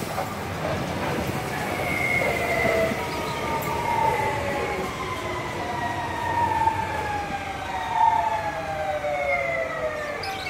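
Renfe Civia electric commuter train slowing into the station, its traction motors whining in several tones that fall steadily in pitch as it brakes, over the rumble of the wheels on the rails.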